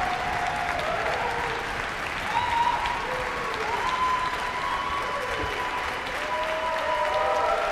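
Concert audience applauding steadily, with scattered voices whooping and cheering over the clapping.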